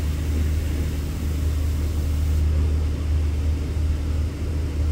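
Steady low rumble of a running engine: a deep, unbroken hum with a few fainter steady tones above it.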